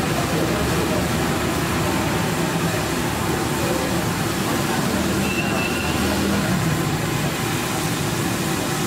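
Steady roadside street noise of traffic and voices, with a thin egg gravy bubbling on a large hot iron griddle.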